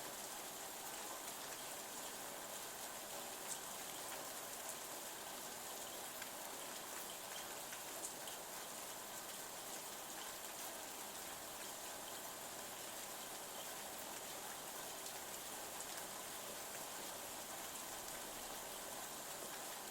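Light rain falling on a window: a steady, even hiss of rain with a few sharper drop ticks, two standing out about three and a half and eight seconds in.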